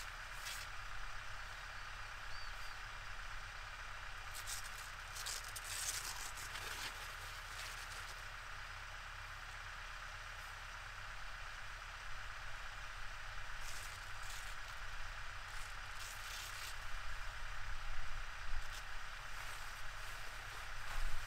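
Heavy canvas awning rustling and flapping in scattered bursts as it is folded and pulled down by hand, busier near the end, over a steady low hum.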